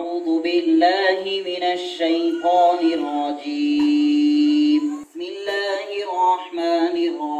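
Background song: a solo voice singing a melody without words, with a long held note about halfway through and almost no instrumental backing.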